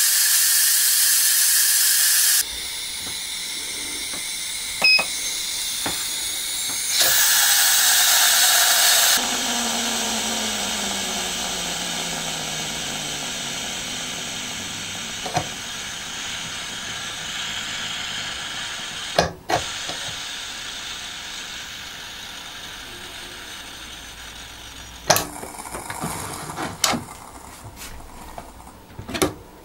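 Steam hissing out of the pressure-release valve of a Briz electric pressure multicooker as the pressure is let off after the rice cycle. It comes in loud spurts while the valve is held open, then a long hiss that fades as the pressure drops. A few sharp clicks and knocks come near the end.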